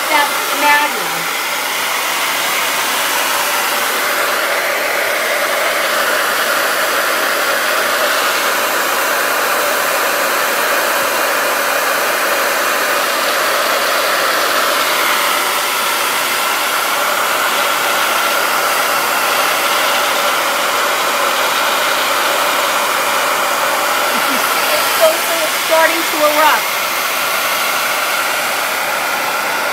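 Handheld hair dryer running steadily at close range, blowing hot air onto wax crayons to melt them. A few short pitched sounds break in near the end.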